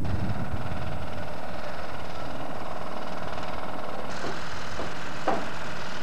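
Vehicle engine idling with a steady hum, with a few sharp knocks in the last two seconds.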